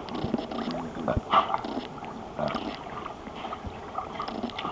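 Swimming-pool water lapping and sloshing as a Siberian husky paddles, with a couple of short knocks about a second in.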